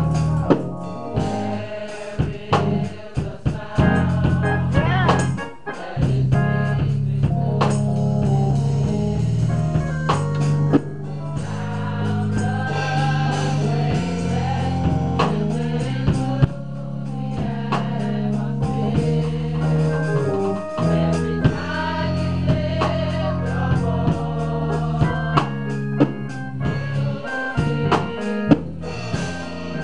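Gospel choir music: an organ holds sustained chords under singing, with frequent drum strikes.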